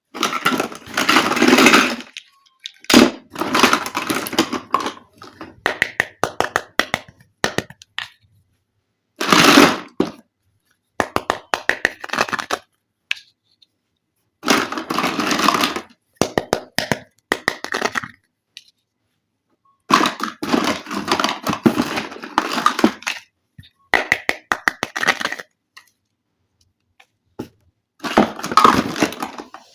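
Plastic packaging and small plastic toy pieces of a toy kitchen play set being handled: bursts of crinkling and crackling with quick clicks, each a second or two long, separated by silent gaps.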